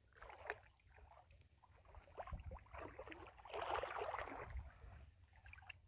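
Faint, irregular sloshing and splashing of water, strongest in the middle stretch.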